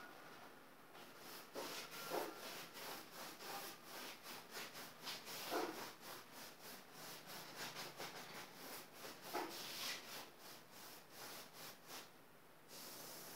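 Paintbrush strokes on a stretched canvas: a fairly quiet, irregular run of short rubbing swishes, about two a second, that stops near the end.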